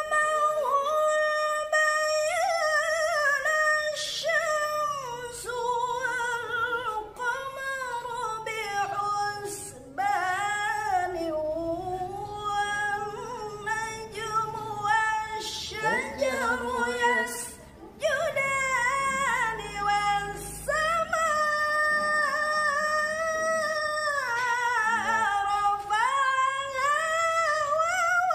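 A woman reciting the Qur'an in maqam bayati, in long, ornamented held notes with wavering melisma. She pauses briefly for breath twice, dips lower in the middle and climbs to her highest notes near the end, toward the top register (jawabul jawab).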